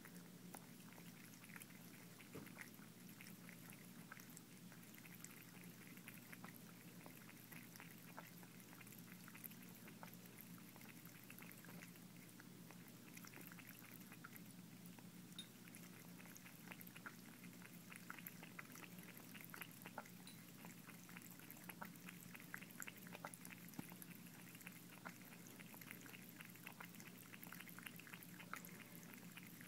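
Faint sound of a cat lapping water in a sink: a continuous run of quick, soft licking clicks over a light trickle of running water, with a low steady hum beneath.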